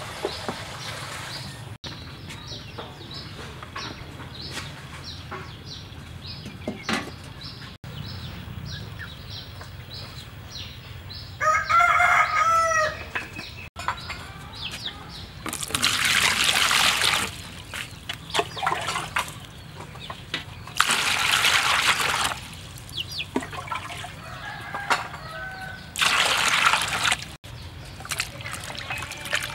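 A rooster crowing once, loudly, near the middle. Later come three bursts of water pouring and splashing in a plastic basin as raw pig intestines are washed.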